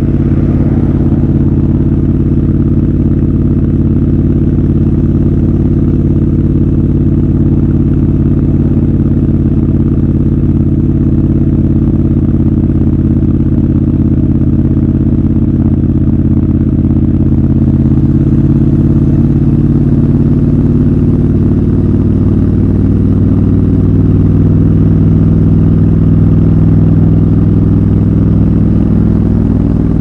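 Triumph Scrambler 1200 XC's 1200 cc parallel-twin engine running steadily at a cruise, a loud, even exhaust note that rises slightly in pitch about two-thirds of the way through.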